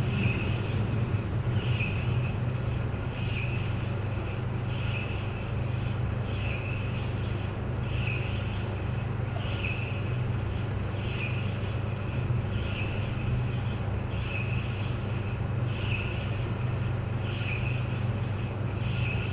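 Clothes dryer running: a steady low hum, with a short high swish that comes back about every second and a half as the drum turns.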